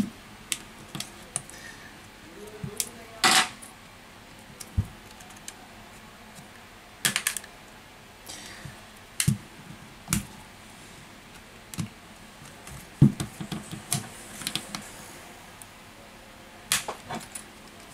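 Irregular sharp clicks and taps of a metal pry tool and fingers working around a smartphone's edge to release the clips holding its back cover.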